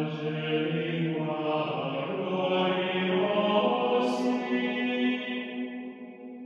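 Slow, sustained transition music holding long low notes, the lowest note stepping up about halfway through; it fades away near the end.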